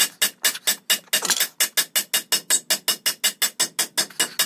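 Rapid, steady hammer blows on metal, about five a second, driving the front timing gear off the crankshaft of a Kubota V2203 diesel engine.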